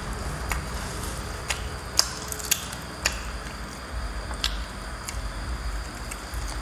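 About six sharp, separate clicks and cracks as roast chicken is torn apart by hand and chewed, small bones and pieces snapping, over a steady low hum.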